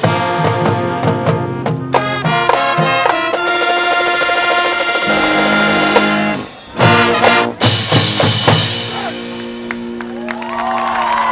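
High school marching band playing loud sustained brass chords. The music breaks off about six and a half seconds in for a few short punched hits, then settles into a long held chord.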